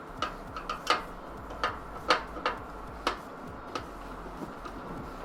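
Irregular light clicks and taps, about eight over five seconds, as screws and the top mounting bracket of a PC case are unscrewed, handled and set down.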